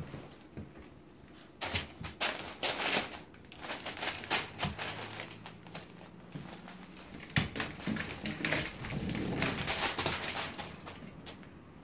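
Newspaper lining a puppy playpen rustling and crinkling in irregular bursts as the puppies move about on it and pull at it. It comes in two busier spells, from about two seconds in and again from about seven seconds in.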